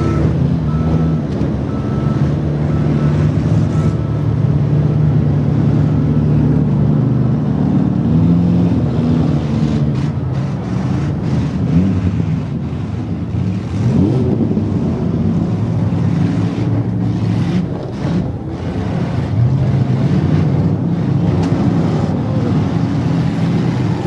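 Loud, steady engine running of demolition derby cars, with a rising rev about 14 seconds in. A wheel loader's diesel engine is close by at the start, along with a faint beeping that repeats for the first few seconds.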